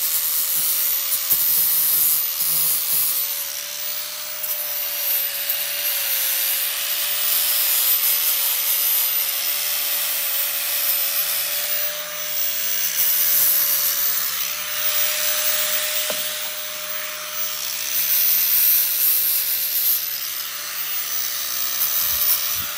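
Angle grinder running with a steady whine while its wheel grinds the end of a metal exhaust pipe on a catalytic converter, cleaning it to bare metal for MIG welding. The grinding noise swells and eases every few seconds as the wheel is pressed on and let off.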